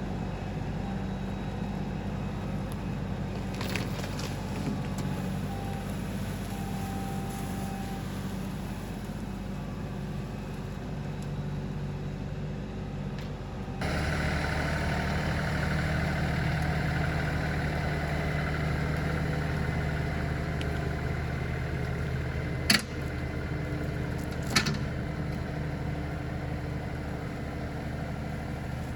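LS tractor's diesel engine running steadily. About fourteen seconds in, the engine sound changes abruptly and gets louder, and near the end there are two sharp knocks about two seconds apart.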